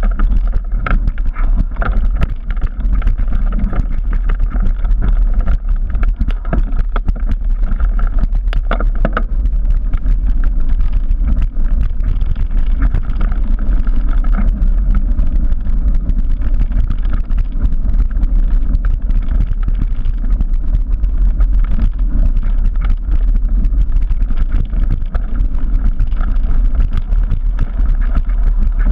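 Wind rushing over the microphone of a camera on a Trek Remedy 9 full-suspension mountain bike descending fast on a rough dirt and stone trail, a steady low rumble. Dense, uneven clattering of the bike and its tyres over the bumps runs through it.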